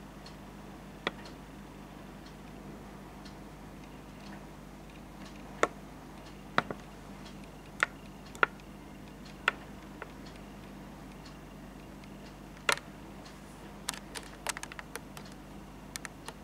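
Irregular sharp clicks and taps, single ones a second or two apart, then a quick run of lighter clicks near the end, over a faint steady hum.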